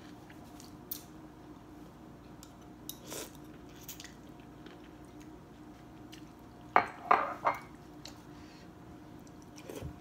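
A metal spoon and chopsticks clinking and scraping against a ceramic soup bowl while eating noodle soup: scattered light clinks, with a louder burst of clatter about seven seconds in.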